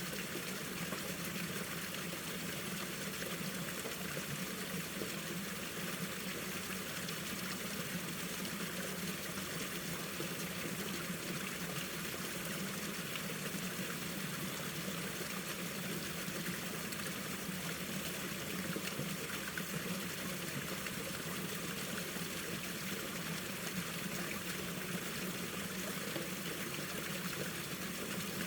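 Mountain stream water flowing and trickling over rocks, a steady even rush without pause.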